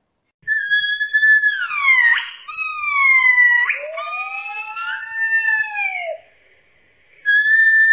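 Monkeys giving high whistled calls that glide in pitch, mostly falling, several tones overlapping at once, with a lower call that rises and falls in the middle. The calls stop for about a second near the end, then start again.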